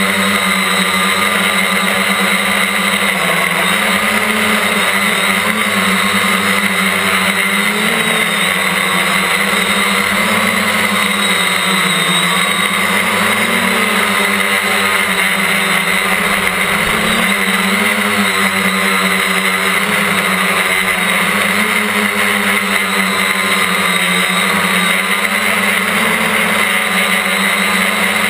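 Quadcopter's electric motors and propellers running in flight, heard close from a camera mounted on the craft: a loud steady hum whose pitch rises and falls slightly as the motors speed up and slow down.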